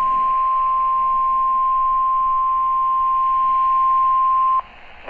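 NOAA Weather Radio warning alarm tone: a single steady 1050 Hz tone over faint hiss that cuts off abruptly about four and a half seconds in. The tone signals that an alert message is about to be broadcast.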